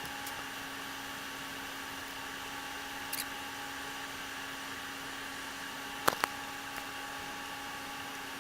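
Steady electrical hum with a few fixed tones, broken by a faint click about three seconds in and two sharp clicks close together about six seconds in.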